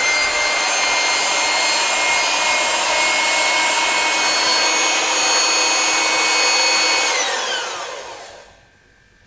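Electric hand mixer running steadily with a whine as its beater froths hot milk in a plastic measuring cup. About seven seconds in it is switched off and its pitch falls as the motor winds down.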